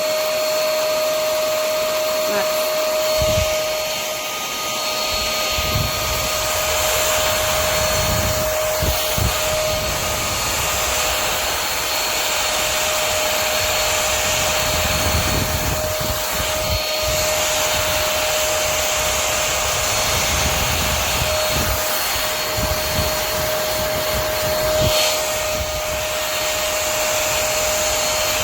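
OIRFND cordless stick vacuum running steadily, a constant rushing of air with a steady whine from its motor, with irregular low bumps as it is worked.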